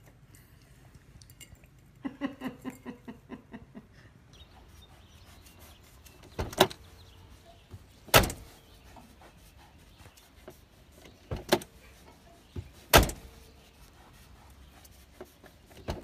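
Car door handle pulled and snapping back, likely worked by a sheep's mouth: three loud, sharp clacks a few seconds apart. Earlier there is a short run of quick, evenly spaced pulses.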